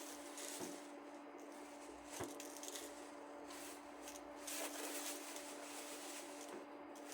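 Faint handling sounds, soft rubbing and a few light clicks, over a steady hum.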